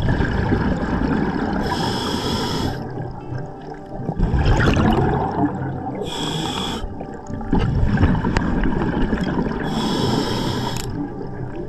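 Scuba diver breathing through a regulator underwater: three hissing draws on the demand valve, each about a second long and about four seconds apart, with rumbling, gurgling exhaust bubbles between them.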